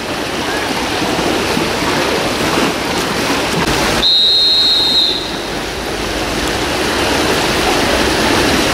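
A referee's whistle blows one steady high note for about a second, about four seconds in: the long whistle calling the next heat's swimmers up onto the starting blocks. Steady rushing poolside noise runs under it.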